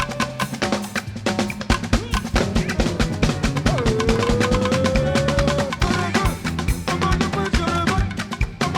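Live gospel band music with a busy drum-kit beat of snare and bass drum. About four seconds in, one long held note sounds over the band for about two seconds.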